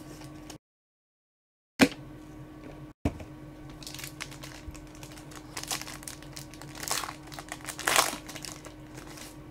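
Foil trading-card pack wrappers crinkling as they are handled and torn open, louder in two spurts near the end. A single sharp knock comes about two seconds in.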